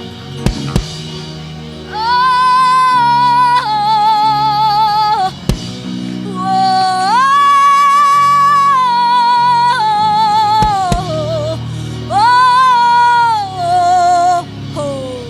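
Church worship music: a high melody of long held notes with vibrato, sung or played in phrases over sustained keyboard chords, with a few sharp clicks.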